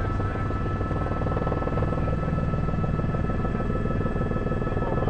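News helicopter's rotor and engine noise: a steady low drone with a fast chopping pulse.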